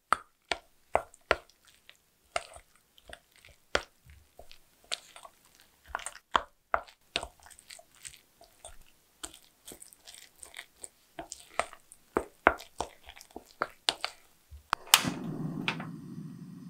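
Wooden spoon stirring raw eggs into cooked rice in a stainless steel bowl: irregular wet squishes and taps of the spoon against the bowl. About fifteen seconds in, a portable gas stove clicks as it is lit and the burner catches, followed by a steady low rush of the gas flame.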